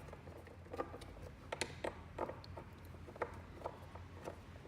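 Screwdriver driving screws to fix a metal mounting bracket: a string of irregular clicks and ticks, a few a second.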